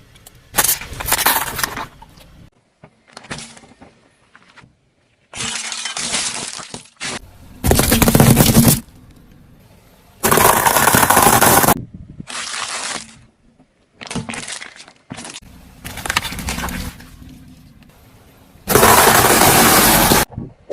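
Objects crunching and cracking as they are crushed under a car's tyre, in a run of about eight short clips, each cut in and off abruptly with silence between; the longest bursts are a little over a second.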